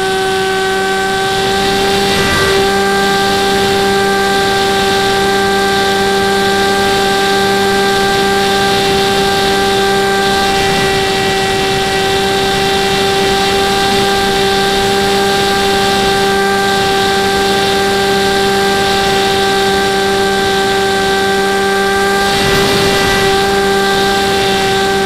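FPV model plane's motor and propeller running with a steady whine that holds one pitch throughout, picked up by the onboard camera, with air rushing past that swells briefly a few times.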